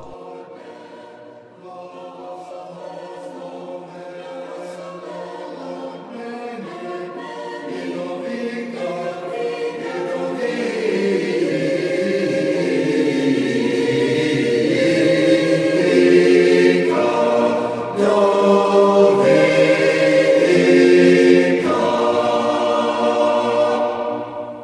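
Choir singing a slow chant in held chords, swelling steadily louder through most of the passage, then fading out at the close.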